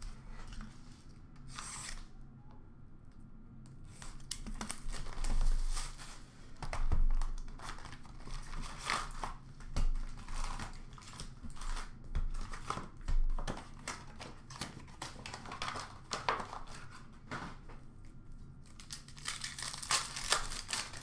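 Packs of Upper Deck hockey cards being torn open by hand: wrappers tearing and crinkling in a run of short bursts, loudest a few seconds in.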